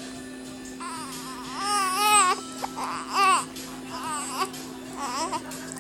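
Baby fussing: a run of short, high, wavering cries and whimpers. The longest comes about a second in, followed by three briefer ones.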